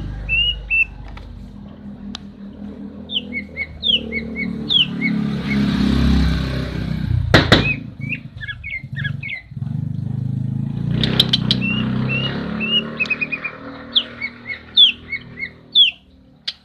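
Female green leafbird (cucak ijo) calling in short whistled chirps and down-slurred notes, in scattered runs, over a steady low rumble. A sharp knock comes about halfway through.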